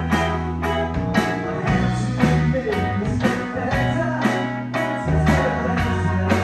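A band playing a blues-rock song, with guitar over sustained bass notes that change every second or two and a steady beat of about three strokes a second.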